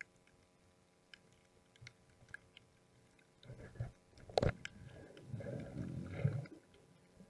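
Muffled underwater sound heard through an action camera's waterproof housing as a Galapagos sea lion swims up against it: faint scattered clicks, then from about three and a half seconds a louder low rumbling, with a sharp knock and a second loud stretch before it fades near the end.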